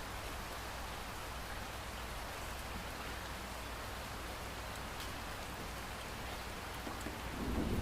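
Steady rain falling, with the odd sharp drop ticking on a surface. A low rumble of thunder starts to build near the end.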